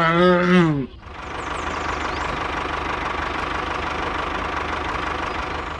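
Tractor engine running steadily with an even rhythm. A short vocal grunt, its pitch rising then falling, sounds over it in the first second.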